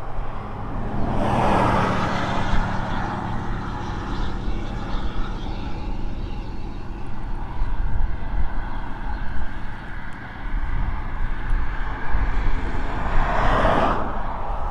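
Road traffic: a vehicle passes about a second and a half in and another near the end, each a swelling rush of tyre and engine noise, over a steady low drone and wind on the microphone.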